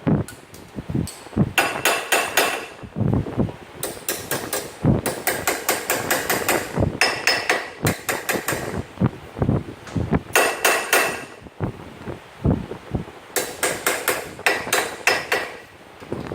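Hammer blows on an ATV's CV axle, driving it into place: fast runs of sharp metal-on-metal strikes, several a second, broken by short pauses. Some strikes ring brightly.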